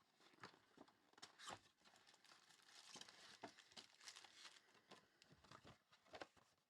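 Faint crinkling and rustling of foil trading-card pack wrappers and cards being handled, with scattered light clicks.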